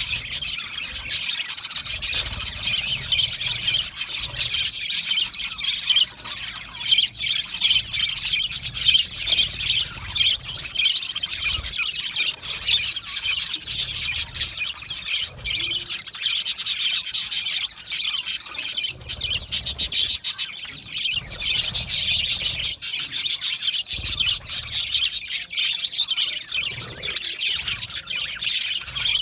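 A colony of budgerigars chirping and chattering, many birds at once in continuous overlapping chirps, warbles and clicks.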